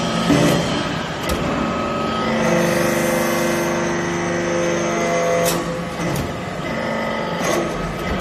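Hydraulic metal-chip briquetting press running, its pump giving a steady mechanical hum. A stronger held tone comes in about two seconds in and stops near six seconds as the ram presses the swarf into the mould. A few sharp clicks or knocks are heard from the machine.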